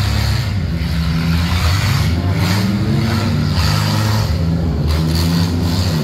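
Engines of several enduro derby race cars running and revving as they race, the pitch rising and falling with the throttle.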